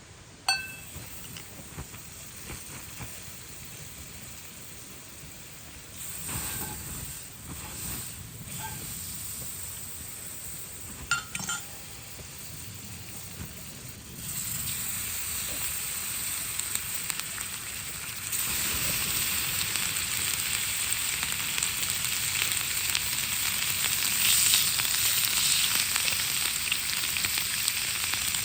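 Food sizzling on a heavy iron frying-pan plate over a fire, with a ringing metal clink just after the start and another about eleven seconds in. The sizzle grows louder in two steps, about fourteen and eighteen seconds in.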